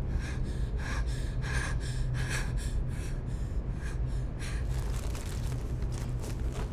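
A person breathing hard in quick, short gasps, one every half second or so, easing off about two-thirds of the way through, over a steady low hum.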